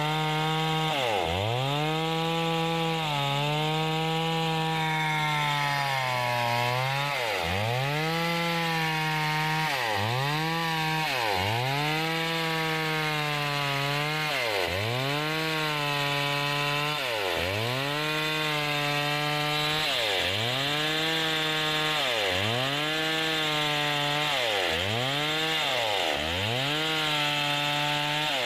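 STIHL two-stroke chainsaw at high revs, rip-cutting lengthwise through a thick wooden plank. The engine's pitch dips sharply under load and recovers every second and a half to two seconds as the chain bites into the cut.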